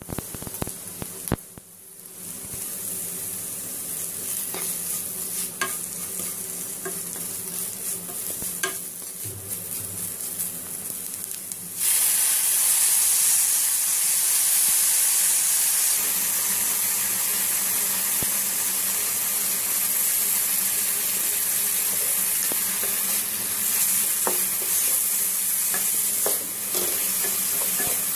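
Julienned carrots and green peppers sizzling as they stir-fry in a wok, with the small scrapes and taps of a spatula stirring them. About twelve seconds in the sizzle jumps suddenly louder and stays that way as chilli sauce goes into the hot pan.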